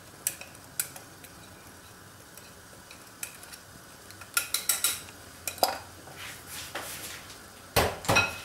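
A utensil scraping and clinking against a glass bowl as thick batter is scraped out into a steel tin: scattered sharp clinks, a quick run of scrapes about halfway through, and two louder knocks near the end.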